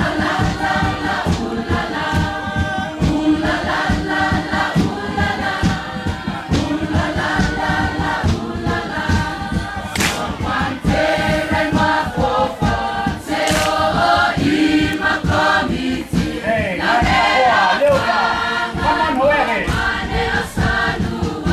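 A large group of voices singing a Rotuman hafa song together, with rhythmic hand clapping under the singing.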